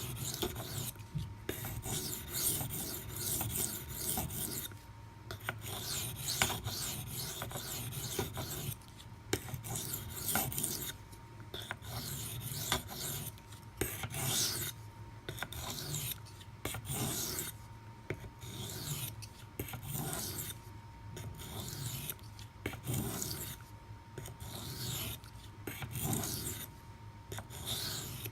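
A Maxamet steel knife blade scraping back and forth across a 400-grit CBN waterstone in repeated strokes, about one or two a second, grinding a chip out of the edge.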